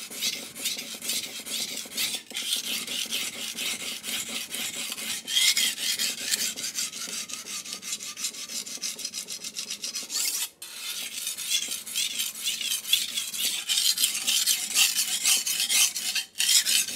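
Steel blade of a Suisin 210 mm chef's knife stroked back and forth on a coarse King G-45 220-grit waterstone: continuous wet, gritty scraping, with short pauses about two, ten and sixteen seconds in.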